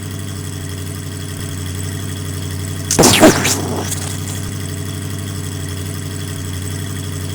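A vehicle engine runs steadily with a low hum. About three seconds in, a loud sweeping sound lasting about a second rises above it.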